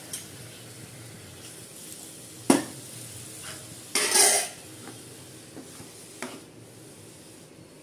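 Steel ladle stirring sambar in a kadai, knocking and scraping against the pan: a sharp knock about two and a half seconds in, a longer clatter around four seconds, and a few lighter taps. The curry sizzles faintly underneath.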